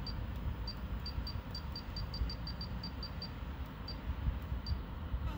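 FM radio static hissing from the car speakers as the Pioneer AVH-W4400NEX head unit is tuned step by step between stations, with a run of short high beeps as the tune arrow is tapped, quick in succession over the first three seconds, then twice more.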